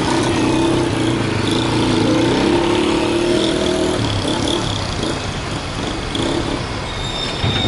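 City road traffic on a wet avenue: a vehicle engine running steadily and strongest for the first four seconds, then easing into a general traffic hiss.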